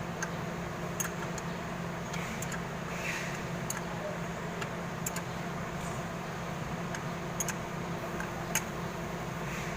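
A steady low mechanical hum with scattered light clicks and taps, like metal parts and hand tools being handled during repair work.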